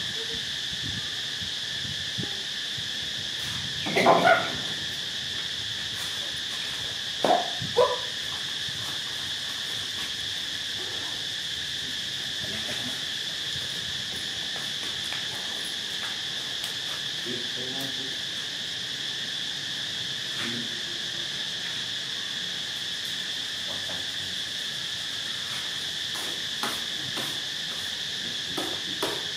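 Steady insect chorus, a continuous high drone in several pitch bands. Brief louder sounds break in about four seconds in and twice around seven and a half seconds in.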